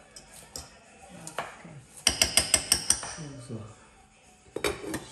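A metal spoon tapped quickly about seven times against a cooking pot, each tap ringing, while cooked rice is being fluffed. Near the end, a stainless steel lid is set down on the pot with a couple of clicks.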